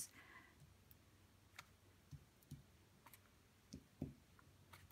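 Faint, scattered clicks and taps from a paintbrush being loaded with acrylic paint in a plastic egg-carton palette and dabbed onto Duralar film, about half a dozen in a near-silent room.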